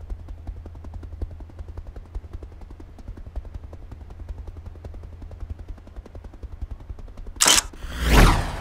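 Logo-animation sound effects: rapid rattling clicks over a steady low hum, then a sharp burst about seven and a half seconds in, followed by a falling whoosh that ends in a deep boom near the end.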